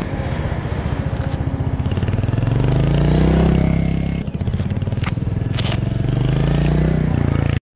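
Royal Enfield Hunter 350's single-cylinder engine accelerating: its pitch climbs for a few seconds, dips at a gear change about four seconds in, then climbs again. It cuts off suddenly just before the end.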